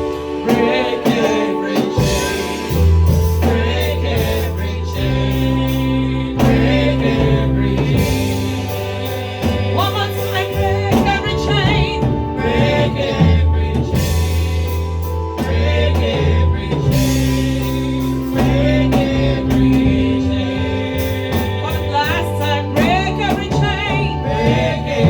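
Gospel worship song with singing over sustained bass and keyboard chords and a steady beat.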